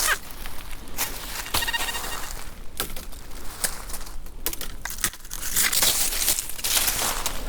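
Rustling and crunching of dry forest-floor litter and soil, with several sharp clicks. A short pitched tone sounds about one and a half seconds in.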